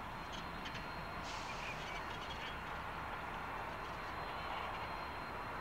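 Two coupled diesel-electric locomotives moving at low speed: a steady engine drone and rumble that grows slightly louder as they approach. A few brief higher sounds come through about one to two seconds in.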